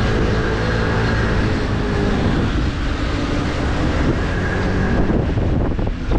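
Motorbike engine running steadily while riding, with wind noise on the microphone.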